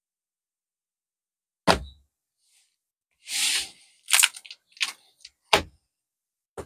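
Card binders being handled: a sharp thump nearly two seconds in, a brief sliding rustle, then a few quick knocks and taps.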